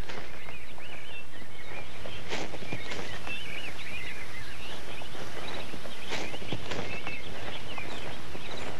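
Outdoor ambience full of many small birds chirping, with a few sharp clicks or knocks now and then.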